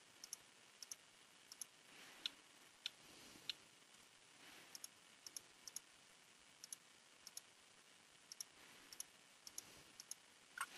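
Computer mouse clicking: about two dozen short, sharp clicks, many in close pairs, over near-silent room tone.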